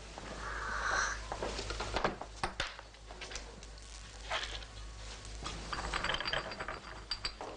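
Scattered light clicks and taps of checkers pieces being handled on a wooden board, with a tea glass sipped from and set down on the table.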